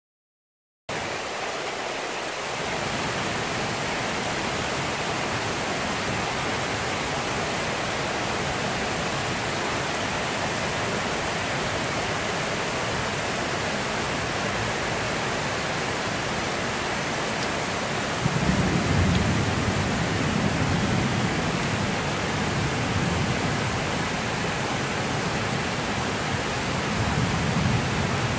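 Heavy monsoon rain falling steadily, an even hiss that starts about a second in. About two-thirds of the way through, a low rumble comes in under the rain and the sound grows louder.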